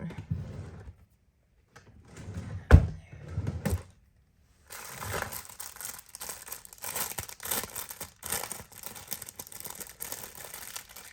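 A sharp knock about three seconds in, then steady crinkling and rustling as a glove is pulled onto a hand.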